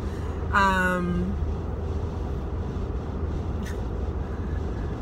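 Steady low road and engine rumble inside a moving car's cabin, with one short held vocal note about half a second in.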